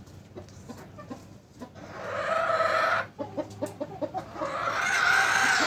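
Chickens clucking in a coop, with two long loud calls, one about two seconds in and one near the end, from birds startled as the feeder curtain is raised.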